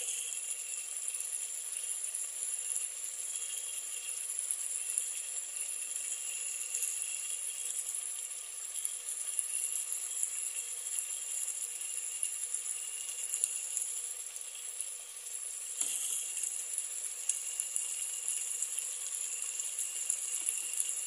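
Sliced onions, tomatoes and green chillies frying in oil in a steel pot, a steady sizzle with one sharper crackle about three quarters of the way through. The onion-tomato masala is being cooked down until soft.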